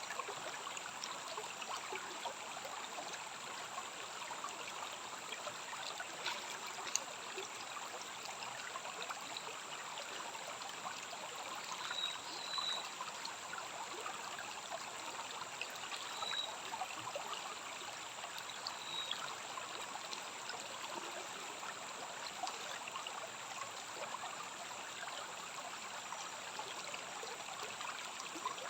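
Rainforest stream running steadily. A few short, high chirps come through around the middle.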